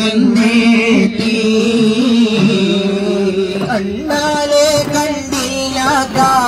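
Music: a devotional song with voices singing an ornamented, wavering melody over a held drone, with drum strikes.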